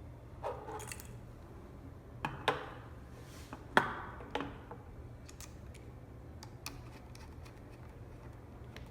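Screwdriver and small drone parts being handled on a work surface while motor mount screws are tightened. A few sharp clicks and knocks come in the first half, the loudest about four seconds in with a short ring, then only light ticks, over a low steady hum.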